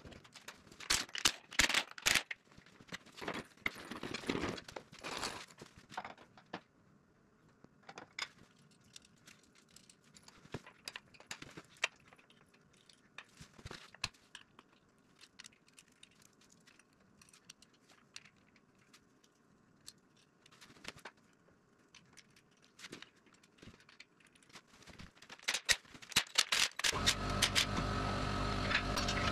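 Scattered metallic clicks and clinks of hand tools and parts as an alternator is fitted to a small-block V8 on an engine stand. About two seconds before the end, a louder steady noise with a hum starts.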